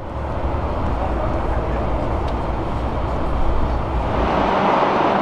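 Steady background noise with a deep rumble. About four and a half seconds in, the rumble drops away and a brighter, hissier noise takes over.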